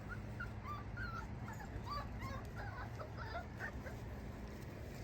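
Puppies whimpering and yipping: many short, high-pitched wavering cries that stop about four seconds in.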